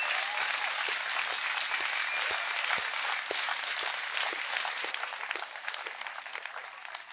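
Audience applause: many people clapping together, dying away over the last two seconds or so.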